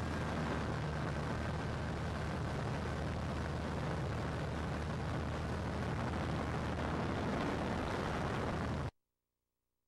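Wind rushing past the open window of a Cessna 182 in flight, over the steady drone of its piston engine. The sound cuts off suddenly about nine seconds in.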